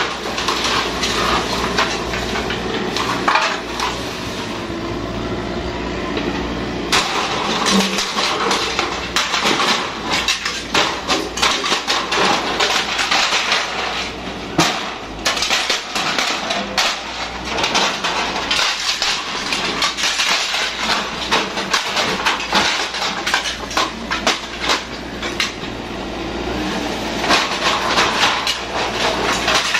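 Yanmar mini excavator's diesel engine running as its bucket tears down a wooden shed: a steady low engine hum, then from about seven seconds in a dense run of cracking, snapping and clattering as timber and roofing break and fall.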